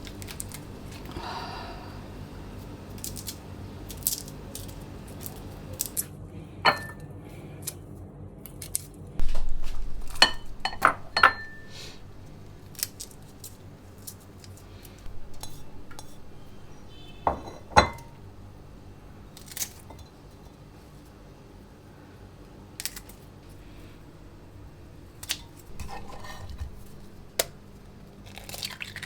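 Dishes and cutlery clinking and knocking in a kitchen, with a run of louder clatter about a third of the way in, over a faint steady hum.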